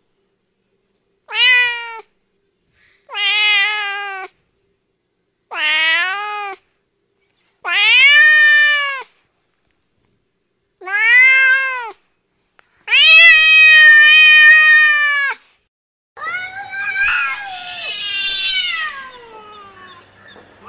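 A cat meowing: six separate drawn-out meows about two seconds apart, each rising and then falling in pitch, the sixth the longest. Near the end comes a rougher, ragged yowl that slides down in pitch.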